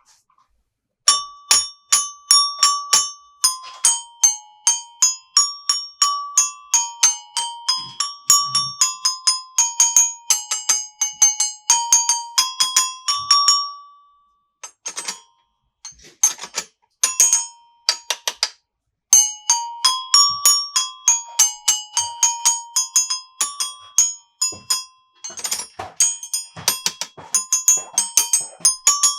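A bright chiming melody of quick struck notes, like a music box or glockenspiel, playing in two phrases. During the pause between them, several sharp clicks are heard.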